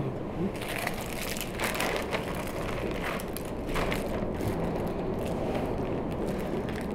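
Thin plastic shopping bag rustling as clothes are handled and stuffed into it, in uneven, continual rustles.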